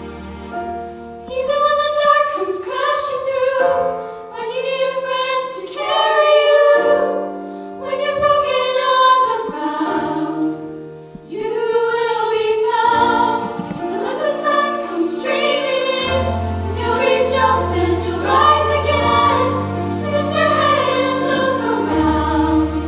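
Women's a cappella vocal group singing in close harmony, phrase by phrase with short breaks between lines.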